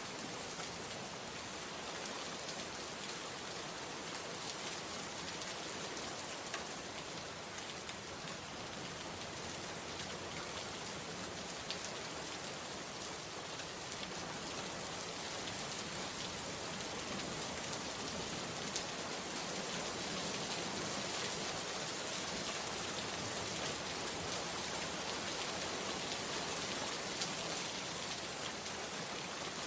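Steady rainfall, an even hiss with scattered drop ticks, growing a little heavier about two-thirds of the way in.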